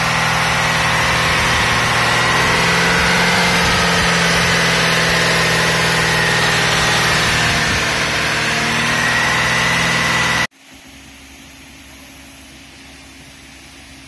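Mazda CX-9's freshly swapped V6 engine idling steadily with a high whine over it, running smoothly after the engine replacement. About ten seconds in, it cuts off abruptly and a much quieter steady hum takes over.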